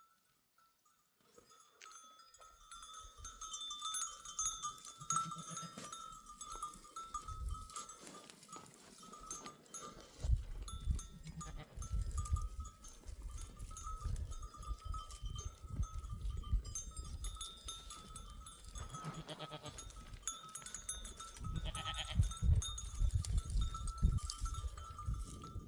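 A herd of goats and sheep with bells clinking and ringing steadily, and a few bleats; a low rumble runs underneath. It starts about two seconds in.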